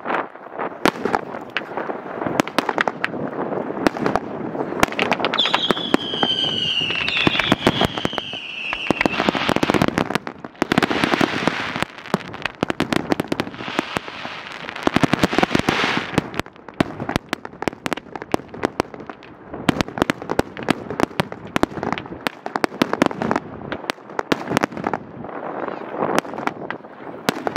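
Professional fireworks display going off continuously: rapid bangs and crackling of aerial shells. A falling whistle sounds from about five to nine seconds in, and a denser stretch of crackling comes around the middle.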